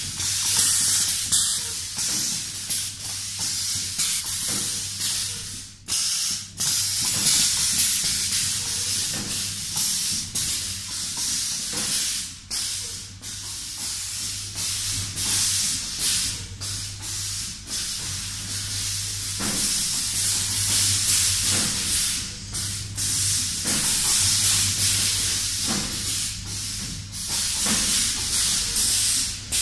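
Steady loud hiss over a low hum, with short dips every few seconds: workshop background noise during hand work with foil seal liners.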